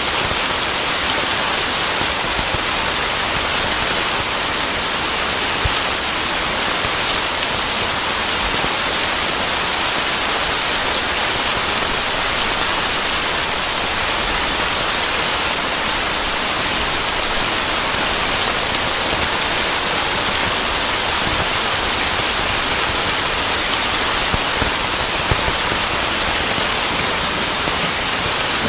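Steady downpour of rain: an even hiss of falling drops with no break or change.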